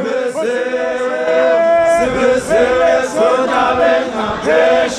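A group of voices chanting a song together, loud, with long held notes in the first second or so and shorter phrases that dip and rise after that.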